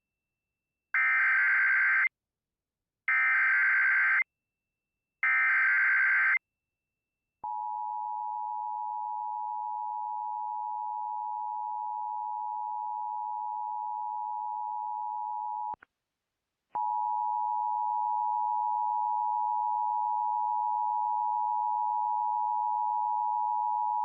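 Emergency Alert System tones: three one-second bursts of the buzzy digital SAME header, then the two-tone EAS attention signal (853 and 960 Hz together) held steady for about eight seconds, a one-second break, and the attention signal again, slightly louder.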